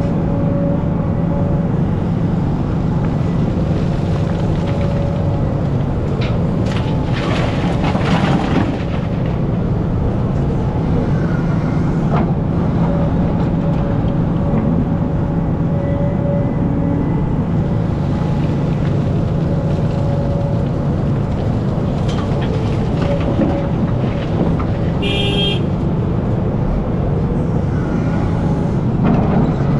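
Hidromek hydraulic excavator's diesel engine running steadily under load, heard from the operator's cab, with the bucket scraping and digging through soil. A brief high-pitched sound rises above the drone about five seconds before the end.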